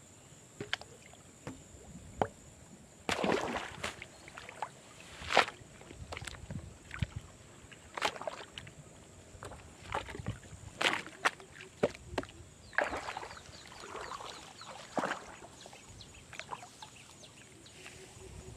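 Shallow pond water splashing and sloshing in irregular bursts as a person wades and lowers things into it, the loudest splash a little over five seconds in.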